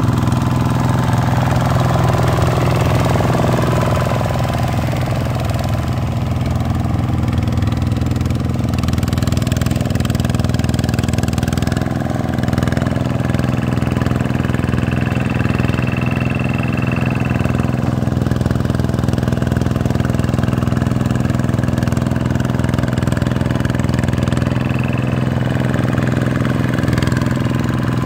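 Vikyno RV 125-2 two-wheel tractor's single-cylinder diesel engine running steadily as its cage wheels churn through a flooded paddy field.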